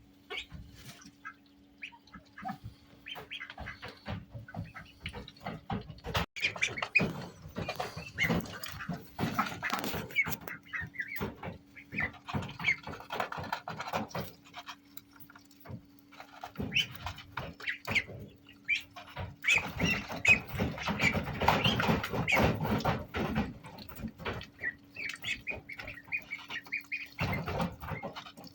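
Indian Runner ducklings peeping, with scratchy rustling and knocking as they move about, busier from about six seconds in.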